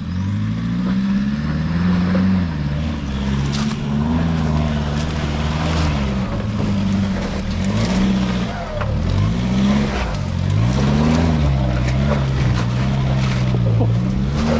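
Four-wheel drive's engine revving hard as it climbs a steep, rocky track, the revs rising and falling again and again. Scattered sharp knocks and clicks sound over it, as from tyres and underbody on rock.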